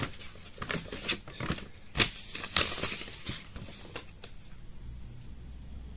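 Irregular light clicks and rustles of handling as a finger holds down the top button of a smart thermostatic radiator valve. They thin out after about four seconds.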